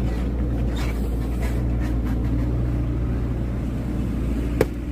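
A single sharp axe strike on firewood about four and a half seconds in, heard over a steady low rumble.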